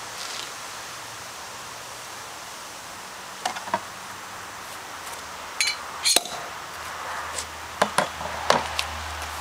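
Hands working at the top of a champagne bottle, removing the foil and wire cage: scattered sharp clicks and crinkles, in small clusters about three and a half seconds in and again from about five and a half seconds on.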